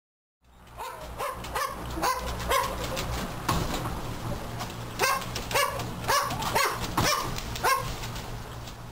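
A series of short barks or yips, about two a second, in two runs with a pause of a second or two between them, over a steady low hum.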